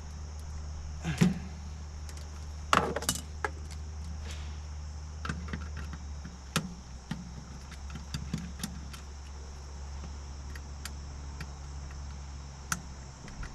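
Hand crimping tool snapping shut on a wire connector about a second in, followed by scattered small metallic clicks and clatter of tools and wire being handled while the control wire is fitted to the terminal, louder near three seconds in.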